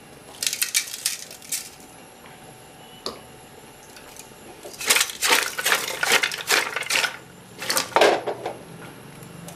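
Cut raw vegetables clattering and scraping against a large metal pot as they are tossed by hand to mix the salt through them, in short bursts with the longest spell of rattling in the second half.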